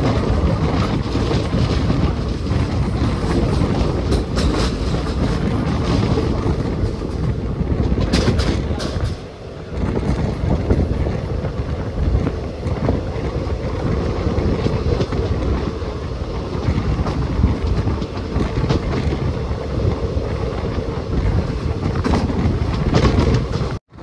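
Passenger train running at speed, heard from the open doorway of a coach: a steady loud rumble and rattle of wheels on rail with rushing air. A few sharper clicks come about eight seconds in, the noise dips briefly about nine seconds in, and it cuts off abruptly near the end.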